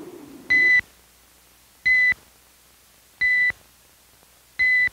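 Electronic beep tone repeating four times, each a short steady high beep about a second and a half apart. It times the pause in which the viewer is to decide "shoot" or "don't shoot".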